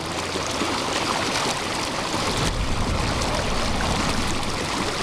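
Shallow stream rushing and churning steadily around a person's legs sitting in the current.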